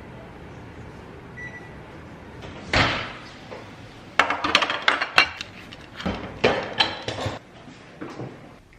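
Dishes and kitchen utensils clinking and clattering in a quick run of sharp knocks, after a short faint beep about a second and a half in.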